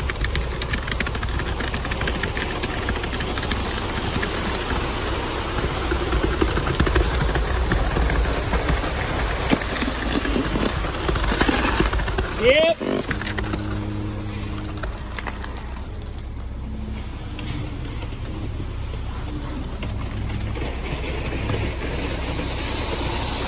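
Concrete mixer truck's diesel engine running steadily while wet concrete slides down the steel chute into a post hole. A short rising high-pitched sound stands out about halfway through.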